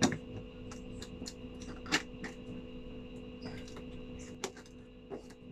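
Cardboard gift box being handled and opened by hand: scattered light taps and scrapes of fingers on the card, with two sharper knocks about two seconds apart, over a faint steady hum.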